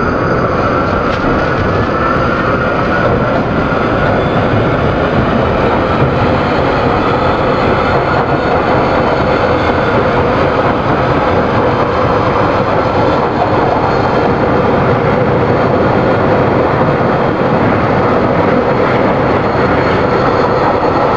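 London Underground train gathering speed out of a station and running through the tunnel, heard from inside the carriage. A loud, steady roar of wheels and running gear, with a motor whine that rises in pitch over the first few seconds as the train accelerates.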